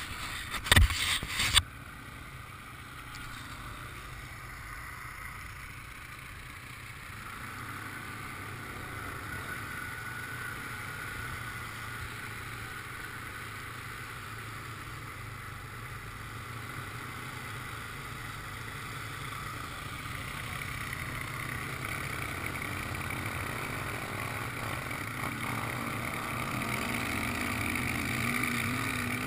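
Quad bike (ATV) engine running steadily as it rides through mud and shallow water, with a few sharp knocks about a second in. The engine sound slowly grows louder toward the end.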